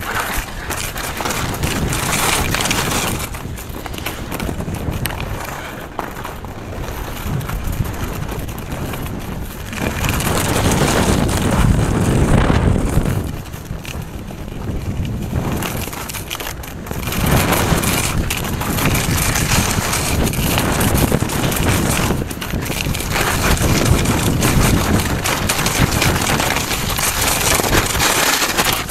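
Nordica skis scraping and carving over packed snow on a downhill run, with wind rushing over the microphone. The noise swells and eases every several seconds as the skier turns.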